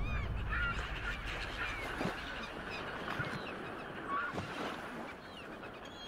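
A crowd of birds calling: many short, high cries and chirps that overlap irregularly, over a steady hiss that slowly fades.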